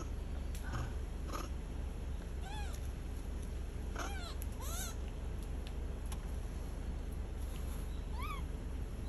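Yakushima macaques (Japanese macaques) calling: about four short calls, each rising and falling in pitch, spread across the stretch over a steady low background rumble.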